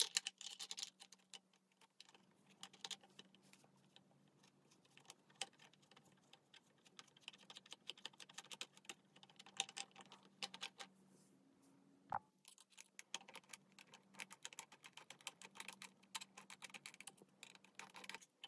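Quiet, irregular clicking and tapping of 3D-printed plastic brackets and small bolts being handled and fitted onto an aluminium tube, with one sharper knock about two-thirds of the way through.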